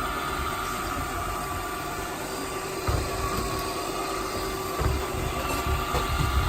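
+Style robot vacuum cleaner running: a steady whir of motor and brushes with a thin high whine, and a few low bumps about three, five and six seconds in.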